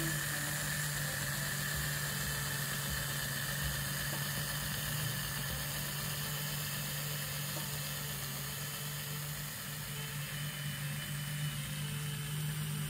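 The sealed motor and plastic worm drive of a Hornby R.077 GWR 0-4-0 tank locomotive chassis running on a rolling road: a steady motor hum with a higher whir over it. It runs smoothly.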